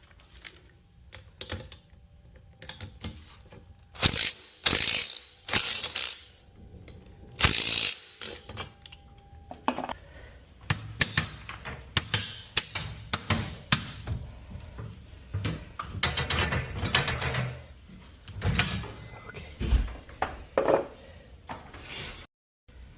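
Metal tool work on garage door torsion springs, one of them broken: irregular clanks and clicks with several louder stretches of rapid clicking, as the springs are taken off.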